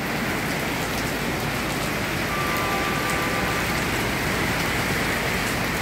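Rain falling on a wet sidewalk and street: a steady, even hiss of splashing drops. A faint steady tone lasts about a second near the middle.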